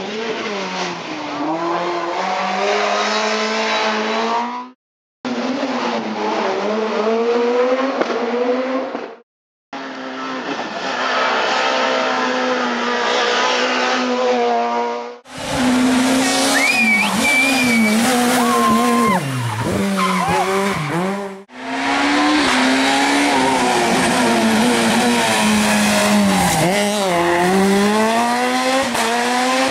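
Rally cars passing at race pace through tight bends in a series of short cuts: engines revving high, then dropping in pitch on gear changes and braking, over and over.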